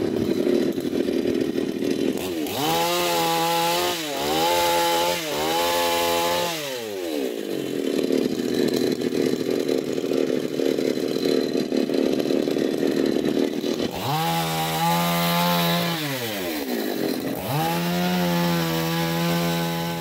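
Chainsaw running hard in the branches of an Acacia mangium tree, revving up and down in bursts: a rising and falling whine a few seconds in and again from about 14 seconds, with a rougher, steadier running between them as the chain bites into the wood.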